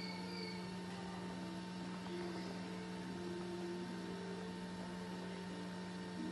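Steady electrical mains hum with a thin high-pitched whine, and faint shifting tones underneath. A couple of faint short chirps come right at the start.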